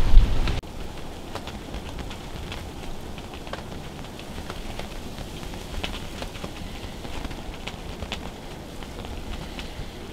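A loud low rumble stops abruptly about half a second in. After that comes a steady faint hiss with scattered light ticks: falling snow hitting the fabric of a ground blind.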